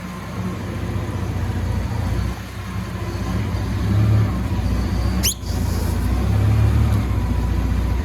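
A large engine running steadily, with its level swelling and easing. A brief sharp rising squeal comes about five seconds in.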